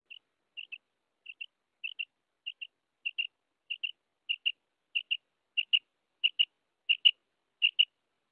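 Common quail calling: a steady series of short, high double notes, about one pair every two-thirds of a second, growing louder as it goes.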